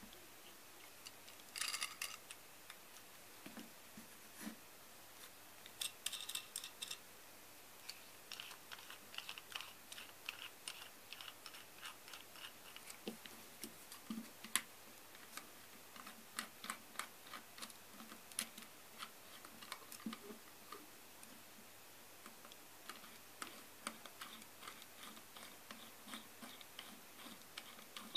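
Light, irregular clicks and taps of small metal parts being handled by hand: a brass collet jig, a graver and a steel rule knocking together as they are fitted and adjusted. A few short flurries come first, then a near-continuous run of small ticks.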